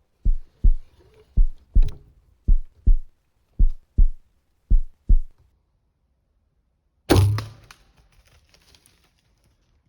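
A heartbeat sound effect: five double thumps, about one a second. About seven seconds in comes a single sharp thwack, the shot of a compound bow, trailing off over about a second.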